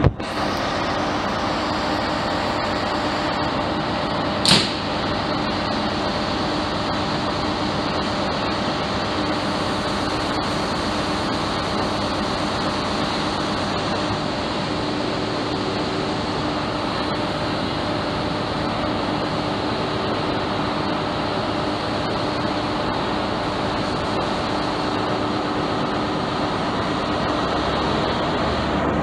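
Class 43 HST diesel power car idling steadily beside the platform, with one short, sharp high-pitched sound about four and a half seconds in. The engine note grows slightly louder near the end as the train gets ready to pull away.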